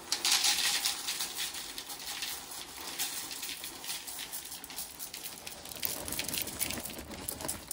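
Dry frosted corn flakes poured from a cardboard box into a plastic bowl: a continuous pattering rattle of flakes landing, loudest in the first second of the pour and thinning toward the end.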